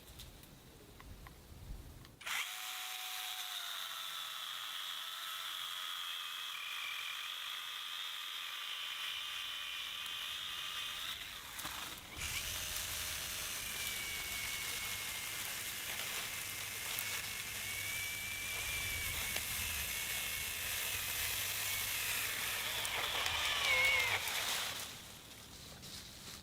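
Battery-powered Prunarbo E8 mini chainsaw with a brushless motor, cutting wood in two long runs with a short break about twelve seconds in. Its whine wavers as it cuts, rises sharply near the end, and then stops.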